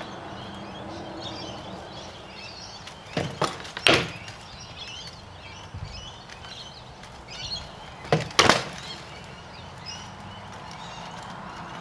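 Heavy-combat sword blows knocking against shields and armour, in two quick flurries of two or three hard knocks each, about three seconds in and about eight seconds in. Birds chirp throughout.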